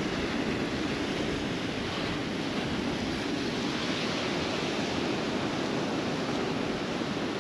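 Steady rush of strong wind buffeting the microphone, mixed with surf washing on the beach.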